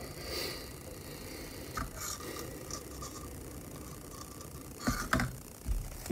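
Small handling noises at a hobby workbench: light scraping and rustling with a few small clicks, then a cluster of louder taps and knocks near the end, as a tiny model leaf is placed with tweezers.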